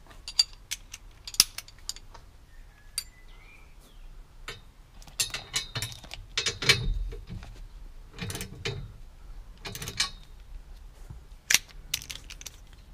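Hand ratchet wrench clicking in short runs as roll cage mounting bolts are turned, with a few sharp metal clinks of the tools.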